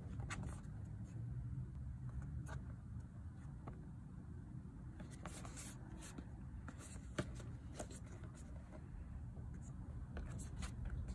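Hands handling and turning a cardboard product box: fingers rubbing and scraping on the cardboard, with scattered light taps, the sharpest about seven seconds in, over a low steady background rumble.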